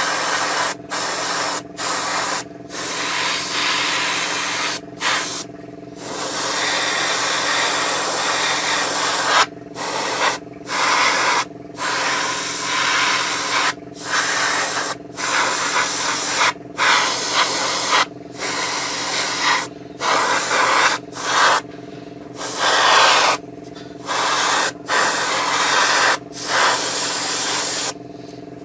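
Airbrush spraying primer in repeated bursts of a second or two as the trigger is pulled and released, with a hiss that cuts out in short gaps between strokes. A steady low hum runs underneath.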